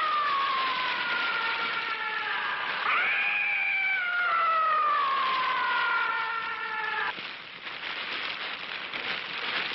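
Film sound effect of a monster's shrieking cry, heard twice; each cry starts high and slides slowly downward. The second cry cuts off suddenly about seven seconds in, and a crackling hiss takes its place.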